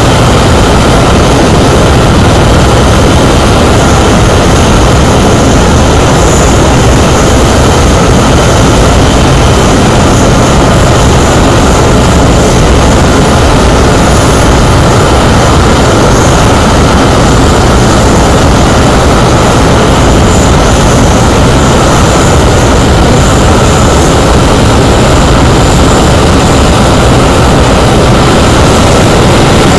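The twin Rolls-Royce Avon turbojets of an English Electric Lightning F.6 running on the ground: a loud, steady jet roar that neither rises nor falls.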